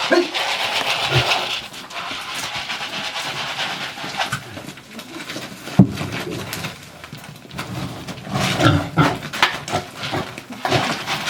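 Farm animals calling and moving about around feed, with irregular short calls and rustling and one sharp knock about six seconds in.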